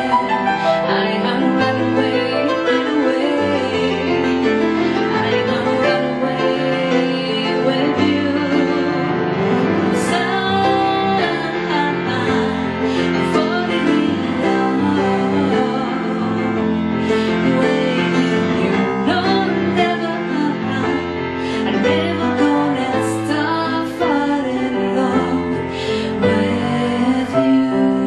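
A woman singing with live piano accompaniment.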